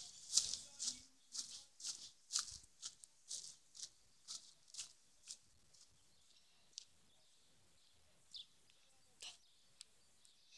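Faint, short hissing noises about twice a second from a person jogging with a phone in hand. After about five seconds they thin out to a few scattered clicks as the pace eases.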